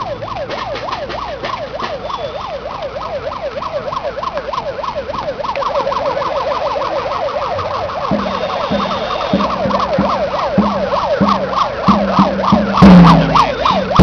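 A siren yelping, a fast rising-and-falling wail about four times a second. About eight seconds in, steady drumbeats start beneath it.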